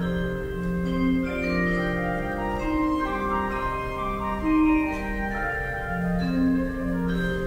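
Wind band playing: held chords and a melody over a bass line of long, evenly spaced low notes.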